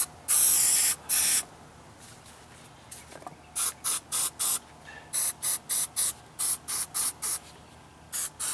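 Ant spray hissing out in bursts: two longer sprays at the start, then after a short pause a run of quick short puffs, about three a second, from around three and a half seconds in.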